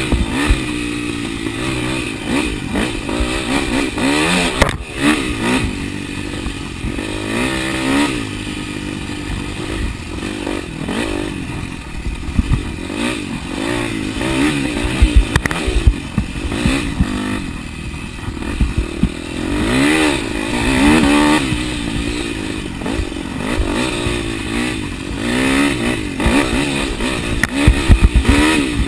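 Dirt bike engine revving up and falling back again and again as the bike is ridden along a rough trail, with occasional knocks and clatter from the bike.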